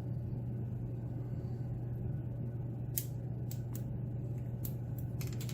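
Light metallic clicks and ticks, scattered through the second half, as a pin-tumbler lock is handled and its pins are taken out, over a steady low hum.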